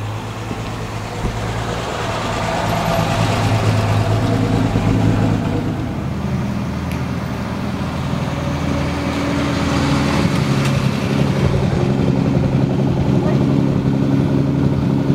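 Two Triumph TR6s' 2.5-litre straight-six engines running as the cars drive past one after the other. The first grows loudest about four to five seconds in, and the second builds through the last few seconds as it passes.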